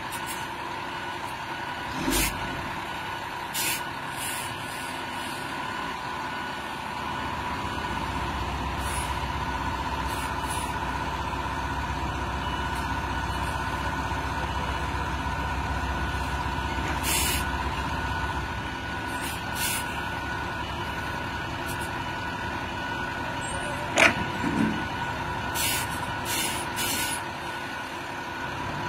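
Heavy military trucks' engines and winches running under load as they haul an overturned armoured personnel carrier back onto its wheels. A steady whine runs throughout, a low rumble swells for about ten seconds in the middle, and short hisses of air come now and then. One sharp clank comes near the end.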